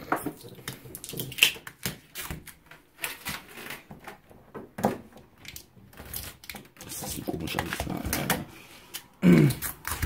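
Handling noise: irregular light clicks and knocks as a hand and phone move along the side of a fridge, with a short voice sound about nine seconds in.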